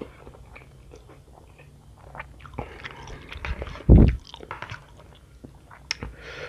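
A person chewing a mouthful of spicy fried instant ramen noodles, close to a headset microphone, with many small wet mouth clicks and smacks. There is a louder low thump about four seconds in.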